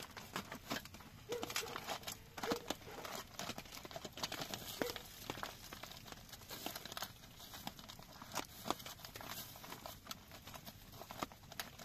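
Irregular crackling and rustling with many small, uneven clicks.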